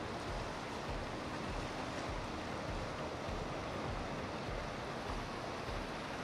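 Flybridge motor yacht passing close by: a steady rush of churned water from its hull and wake over a low rumble.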